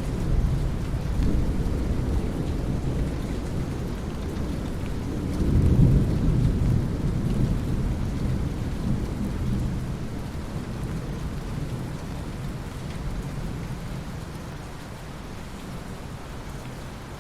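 Thunderstorm: steady rain with a deep rolling rumble of thunder that swells about six seconds in, then slowly dies away under the rain.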